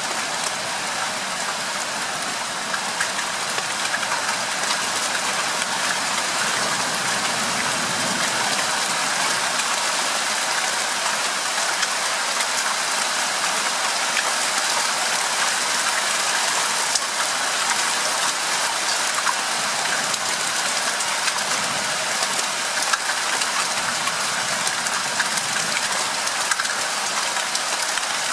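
Steady rain falling, an even hiss of drops with scattered small patters, as a thunderstorm sets in.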